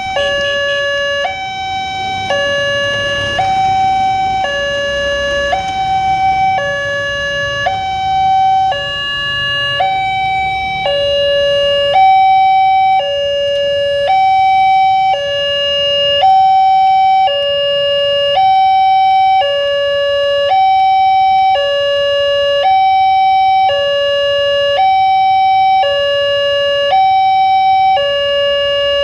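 Railway level-crossing warning siren sounding a steady two-tone hi-lo signal. It switches between a higher and a lower tone about once a second.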